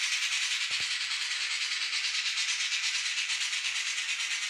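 Steam-locomotive chuffing from the DCC sound decoder of an N-scale model steam locomotive, played through its tiny onboard speaker as the locomotive runs. The chuffs come as a steady, hissy beat in a fast, even rhythm.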